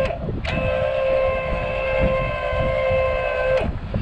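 Lippert electric RV tongue jack's 12-volt motor whining steadily as it drives the jack. It stops briefly just after the start, then runs again for about three seconds before cutting off.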